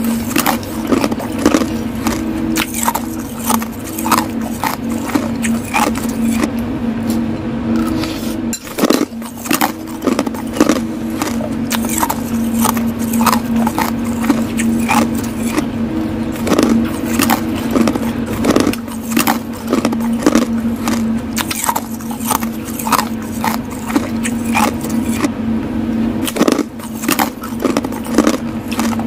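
Ice cubes being crunched between the teeth close to the microphone: a long, irregular run of cracks and crackles, with a steady low hum underneath.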